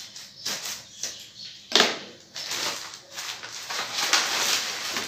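Plastic packet of dog chew sticks rustling and crinkling in the hands, with a sharp click about two seconds in and a longer stretch of crinkling near the end.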